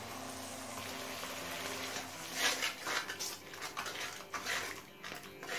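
Spice masala sizzling in hot oil in a kadai with a little water just added, then a spatula stirring and scraping it in irregular strokes from about two seconds in.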